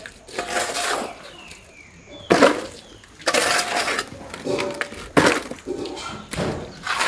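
Long-handled hoe scraping and chopping through wet mud, a rough stroke about every second, five or so in all.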